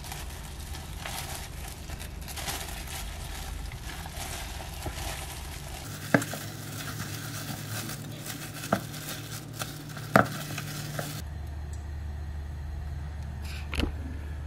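Zucchini fritter batter being mixed in a stainless steel bowl: a hand in a plastic glove squishing and kneading the wet mixture, then a spatula stirring it, with three sharp knocks of the spatula against the metal bowl.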